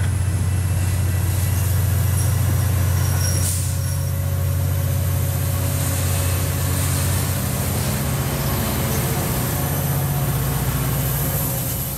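Metra commuter train rolling past on the near track, pushed by its diesel locomotive: a steady low engine hum over the rumble of wheels on rail, easing off slightly as the locomotive goes by near the end.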